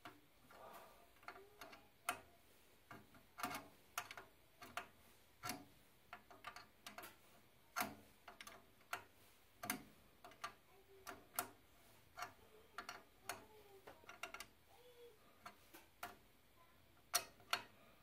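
Open-end wrench clicking on the thermocouple nut at the boiler's gas valve as the nut is tightened in short turns: irregular sharp ticks, about two a second, with a louder pair near the end.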